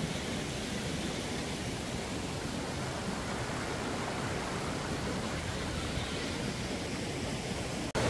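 Waterfall: a steady, even rush of falling water, with a momentary gap just before the end.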